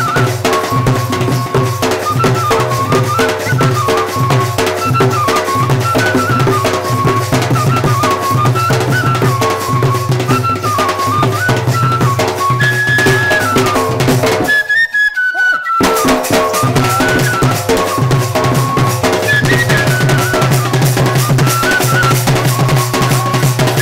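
Folk music: a bamboo flute plays a wavering melody over quick hand strokes on a Sambalpuri dhol barrel drum, with a steady low drone underneath. The sound briefly drops out about fifteen seconds in.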